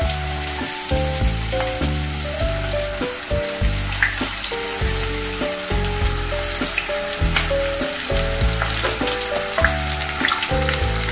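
Breaded onion rings deep-frying in hot oil: a steady sizzle with scattered crackles. Background music with a stepping bass line plays under it.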